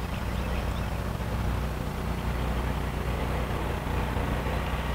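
Steady low machine hum with a constant background noise, no distinct events.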